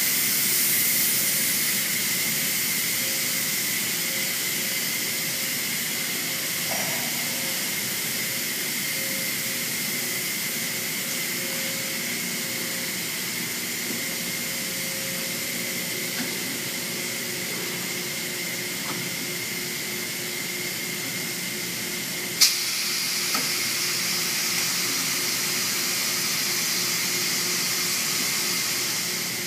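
Steady hissing noise with a faint constant high whine, broken by one sharp knock about 22 seconds in and a lighter tap just after.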